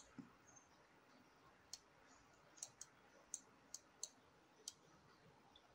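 Faint, irregularly spaced clicks of a computer mouse, about eight in all, over a near-silent room background.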